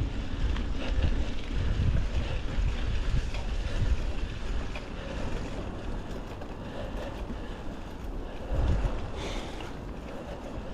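Wind rumbling on the microphone with tyre and trail noise from a Norco Storm 2 mountain bike being ridden, with faint scattered ticks and rattles. The rumble eases off in the second half.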